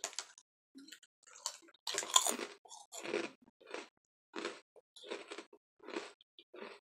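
A person biting and chewing crunchy frosted rice crackers (Yuki no Yado senbei): an irregular run of crisp crunches, a few each second, loudest about two seconds in.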